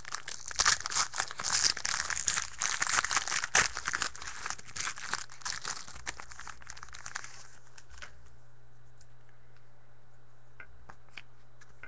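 Crinkling and tearing of a trading-card pack wrapper as it is ripped open and handled, dying away about eight seconds in, followed by a few light clicks.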